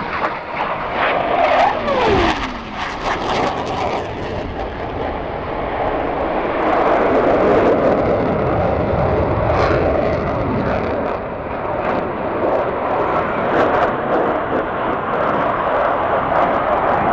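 Jet noise from Blue Angels F/A-18 Hornets, twin-engine turbofan jets, flying past low overhead. A falling whine comes about two seconds in as one jet passes. The noise swells louder again from about six seconds in and stays loud.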